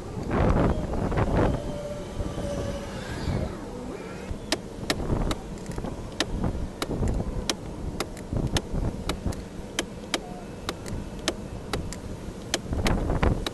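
A run of sharp, irregular clicks, about two or three a second, over rumbling background noise.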